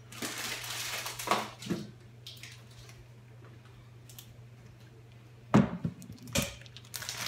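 Cooking utensil working in a frying pan of tofu: a noisy scrape about a second long near the start, then a few sharp knocks and clatters, the loudest about five and a half seconds in, over a steady low hum.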